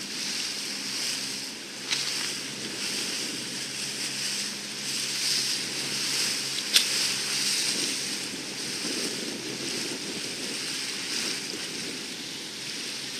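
Wind buffeting the microphone over the wash of waves on open water, with two sharp knocks about two and seven seconds in, the second the louder.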